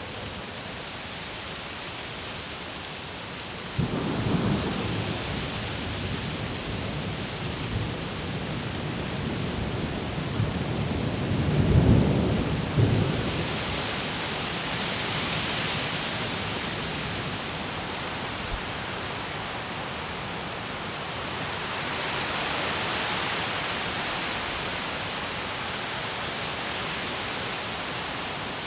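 Steady rain hissing in leafy trees, with the leaves rustling as the wind gusts, swelling twice in the second half. About four seconds in a deep rumble sets in, loudest about twelve seconds in, then dies away.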